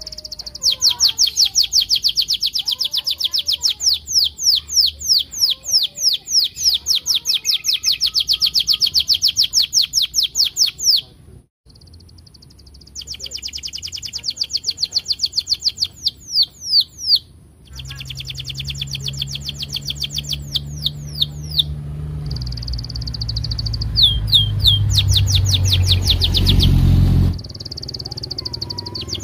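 Domestic canary singing long runs of rapid, repeated falling chirps ('cuit cuit'), about four a second, broken by a brief silence about eleven seconds in and followed by a fast trill. A low hum builds under the song in the second half and stops abruptly near the end.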